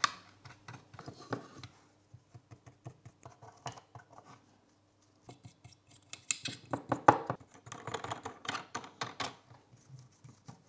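Small paintbrush scrubbing and dabbing a wash onto 3D-printed plastic parts, an irregular run of light scratches and clicks that gets busier in the second half.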